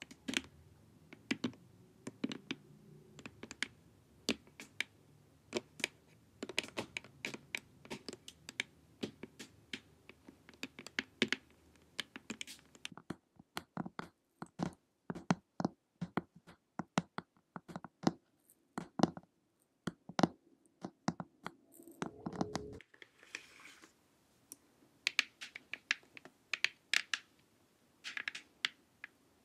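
Long acrylic fingernails tapping quickly and irregularly on a hard plastic face mask and on a thick stack of paper, close to the microphones. The surface changes a couple of times, about 13 and 23 seconds in.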